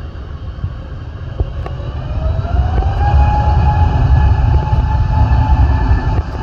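Airbus A320neo's CFM LEAP-1A turbofan engines spooling up to takeoff thrust at the start of the takeoff roll. A rising whine about two seconds in levels off into a steady high whine over a heavy low rumble, and the sound grows louder as it does.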